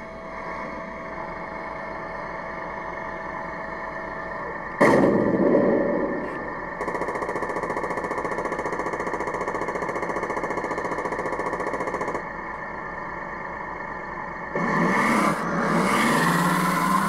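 Tamiya 1/16 M551 Sheridan RC tank's built-in sound unit playing a steady engine idle through its small speaker. About five seconds in comes a loud cannon-shot effect that dies away over a second. From about seven to twelve seconds a steady rapid machine-gun rattle plays, and near the end the engine sound rises as the tank drives off.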